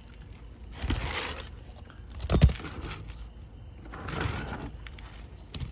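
Scraping and rustling of an asphalt shingle being worked into place on a roof, in a few bursts, with one short thump about two and a half seconds in.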